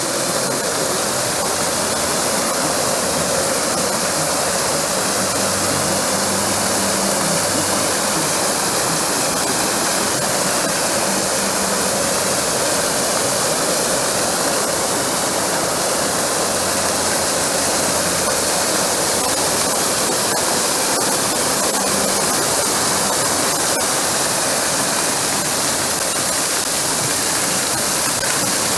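Steady, even rushing noise, like heavy running water or rain.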